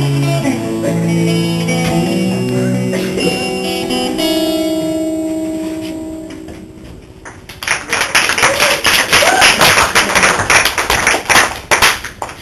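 Acoustic guitar song ending, its last notes dying away about six seconds in. Then a few seconds of clapping applause that stops near the end.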